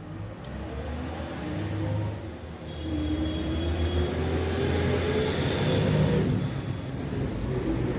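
Yamaha R15 V3 motorcycle's 155 cc single-cylinder engine running, its revs rising between about three and six seconds in, then settling.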